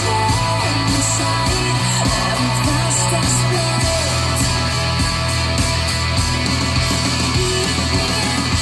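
Music: an instrumental stretch of a pop song, with a held bass line that changes note about four seconds in and a steady drum beat.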